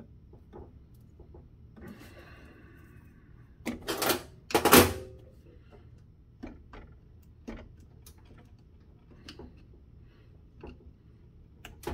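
Metal hand tools clattering on a stainless steel workbench: a few light clicks, a loud clatter of knocks about four seconds in, then scattered ticks as a screwdriver works at small screws in a metal instrument chassis.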